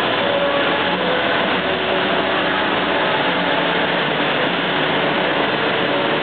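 Steady machinery din of a copper wire and cable factory hall: an even, unbroken noise with faint humming tones and no distinct knocks or events.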